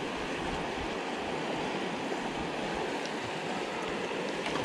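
Steady rushing of a river flowing fast over a rock bar and through rapids.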